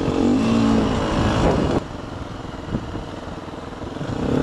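Dirt bike engine revving up and pulling away, its pitch rising. About two seconds in the sound drops abruptly to a quieter, lower running. Near the end the engine revs up again.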